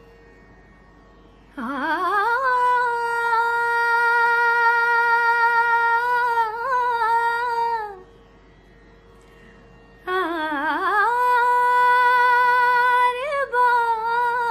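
Slow Indian vocal music: a wordless voice slides up into a long held note with vibrato, stops, then returns about ten seconds in with a second long held phrase, all over a faint steady drone.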